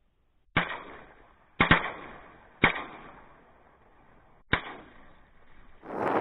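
Five shotgun shots at incoming ducks: one, then two in quick succession, then one more about a second later and a last one two seconds after that, each trailing off in a short echo. Near the end a loud rush of wind noise comes in.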